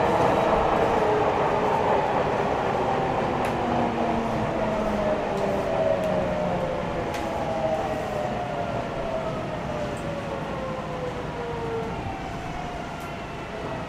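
Interior running sound of a Nagoya Municipal Subway 3050-series train, with its VVVF inverter traction motors whining and falling steadily in pitch as the train slows, and the rumble of the running gear fading.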